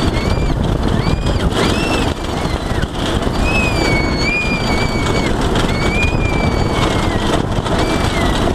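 Go-kart's engine running while the kart bounces over a rough grass field, with wind on the microphone. A series of high-pitched, wavering squeals sounds over it, the longest about halfway through.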